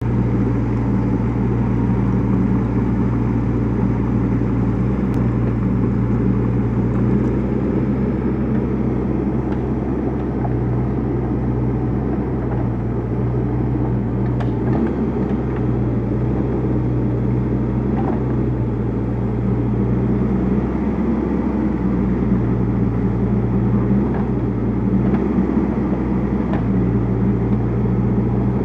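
Kubota KX121-3 mini excavator's diesel engine running steadily as the boom and bucket dig and move soil. The engine hum swells and eases a little with the hydraulic work, and there are a few faint ticks.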